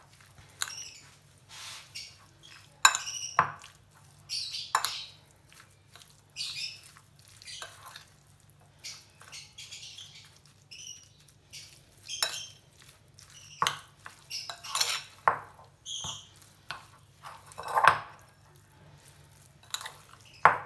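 Metal spoon stirring chunks of marinated chicken in a glass bowl: irregular scrapes and clinks against the glass, with a few sharper knocks, as the chicken is mixed with tikka masala and oil.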